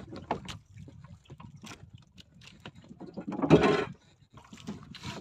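Knocks and rattles aboard a small fishing boat, over a low rumble. About three and a half seconds in comes one louder noisy burst that lasts under a second.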